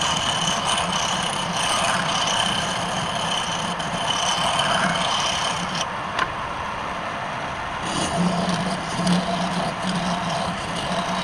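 Wood lathe running steadily, a motor hum under a continuous hiss, with one sharp click about six seconds in.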